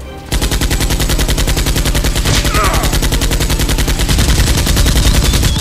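Automatic machine-gun fire sound effect: a rapid, continuous stream of shots that starts abruptly about a third of a second in and keeps going.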